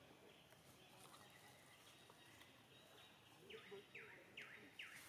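Faint, short, high animal calls repeated about two to three times a second. From about three and a half seconds in they turn into a louder run of quick calls, each falling in pitch.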